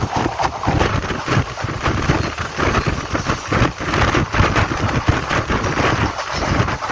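Passenger train running, heard from on board: a continuous rumble of the coach on the rails, with wind buffeting the microphone.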